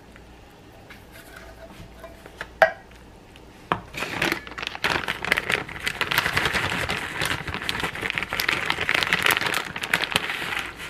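Macaroni and cheese being mixed in a disposable aluminium foil pan, the foil crinkling with many small crackles. It starts about four seconds in, after a single sharp knock.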